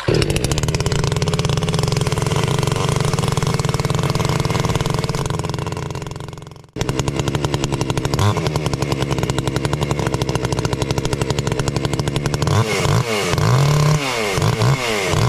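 A brand-new Garwinner 6220 62 cc two-stroke chainsaw running just after a cold start. Its engine sags and nearly dies about six and a half seconds in, then runs again at once. Near the end it is revved up and down several times in quick blips.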